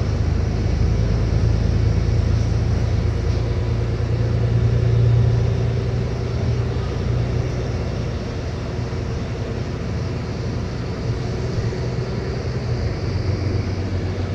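Cabin sound of a New Flyer Xcelsior XD40 diesel city bus under way: a steady engine and drivetrain hum over low road rumble.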